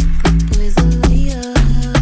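Background music with a steady beat, heavy bass and sliding synth notes, with a short break in the bass about one and a half seconds in.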